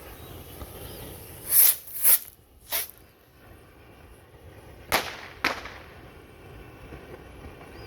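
Three World Class Premium bottle rockets launching: three short hisses in quick succession, then two sharp pops about half a second apart a couple of seconds later as the rockets burst.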